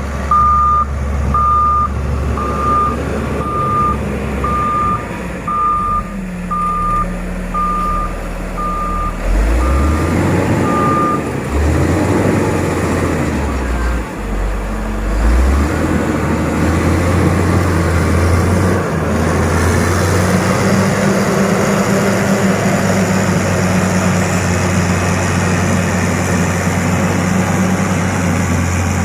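Heavy road-construction machine's diesel engine running with its reversing alarm beeping about twice a second. The beeping stops about 11 seconds in. The engine's pitch rises and falls for a few seconds, then it runs steadily.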